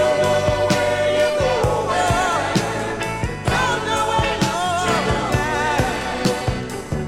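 1970s soul song: a male lead voice holds a long note, then sings wavering melismatic runs over the band's bass and drums.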